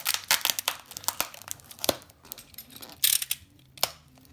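Parcel wrapping being handled, crinkling and tearing in a run of sharp crackles, with a louder burst about three seconds in.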